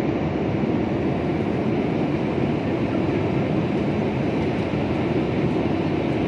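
Steady low rumble of engine and airflow noise inside a jet airliner's passenger cabin in flight.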